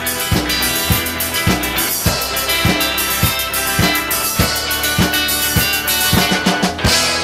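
Rock band playing the instrumental ending of a song, a drum kit keeping a steady kick-drum beat under sustained instruments. Near the end a quick drum fill leads into a crash over a held chord.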